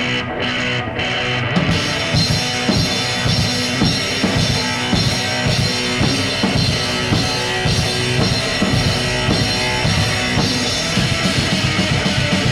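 Live rock band playing an instrumental passage with no vocals. Distorted electric guitar plays alone at first, then drums and bass come in about a second and a half in. Near the end the drum beat turns quicker and denser.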